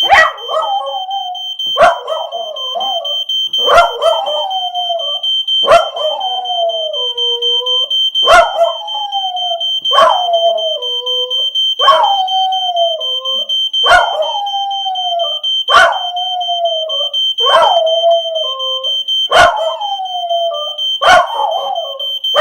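Jack Russell terrier howling along to a fire alarm, about a dozen howls roughly two seconds apart, each sliding down in pitch. Under the howls the alarm keeps up a steady high-pitched electronic tone.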